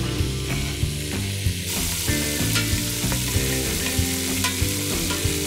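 Oxtail pieces browning in hot oil in a pot, sizzling steadily, with occasional knocks as they are stirred; the sizzle grows louder a little under two seconds in.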